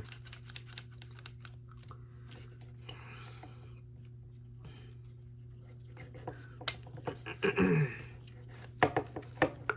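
Scattered light clicks and handling noise as a clamp is fitted onto pulled-out seatbelt webbing to stop it retracting, over a steady low hum. There are a few sharper clicks near the end and a brief mutter about three quarters of the way through.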